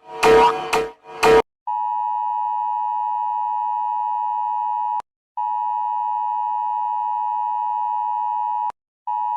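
About a second and a half of short, pulsing musical notes, then the Emergency Alert System's steady two-tone attention signal. The tone breaks off briefly about halfway, stops with a click near the end and starts again just before the close.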